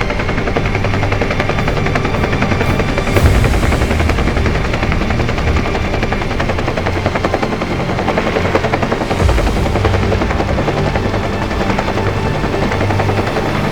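Helicopter running with a steady, loud, rapid beat of its rotor blades over the turbine.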